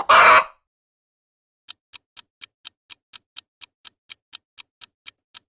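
A loud, brief noisy burst right at the start, then, after about a second of silence, a countdown clock ticking quickly and evenly, about four ticks a second: the timer running while the answer is guessed.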